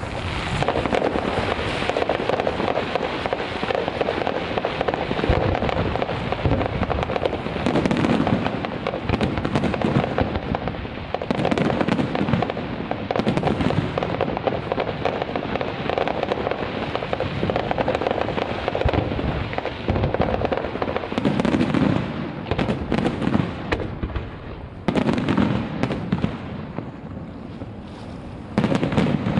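Fireworks display: a dense, continuous barrage of bangs and crackling from shells bursting over the river, with a brief lull about three quarters of the way through before it picks up again.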